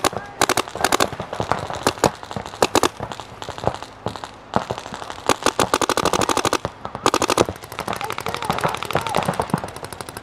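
Paintball markers firing rapid strings of shots, about ten pops a second, several guns going at once with their strings overlapping and thinning out for moments in between.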